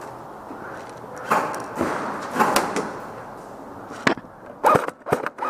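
Rustling and scuffing of movement, then a string of sharp airsoft gun shots in quick succession over the last second and a half.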